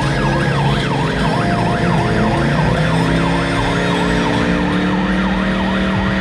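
A siren wailing in a fast yelp, sweeping up and down about three times a second, over a Ford Crown Victoria's 4.6-litre V8 revving slowly higher as the car starts a burnout.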